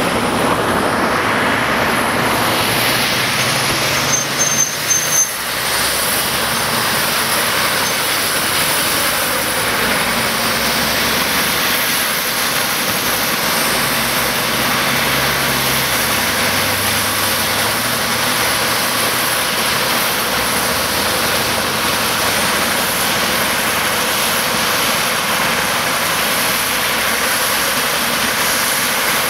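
Steady loud rushing noise with a faint high whine, typical of a helicopter's turbine engines running close by on the ground.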